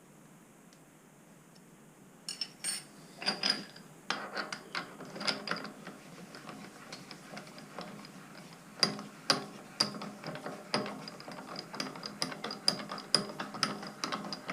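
Rapid, irregular metallic clicking and ratcheting of a hand-worked mechanism, starting about two seconds in, as a milling vice is adjusted into alignment.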